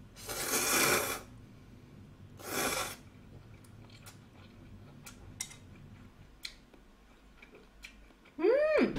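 A person slurping thin ramyeon noodles: one long slurp of about a second near the start and a shorter one at about two and a half seconds, followed by faint chewing and small clicks. Near the end comes a brief hummed "mm" that rises and falls in pitch.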